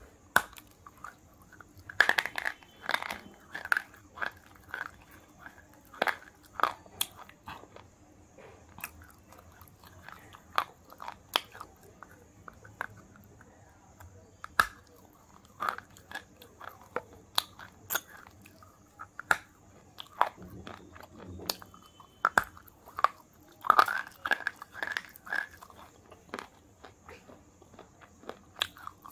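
Close-up biting and chewing of a wet KitKat chocolate wafer bar: sharp, irregular crunches with chewing between them, coming thickest a couple of seconds in and again about three-quarters of the way through.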